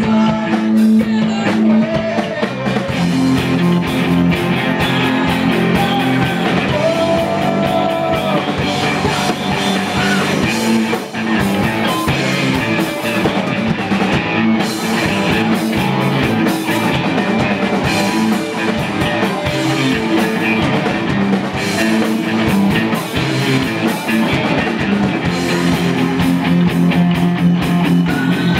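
Live rock band playing loudly: distorted electric guitars, bass guitar and a drum kit.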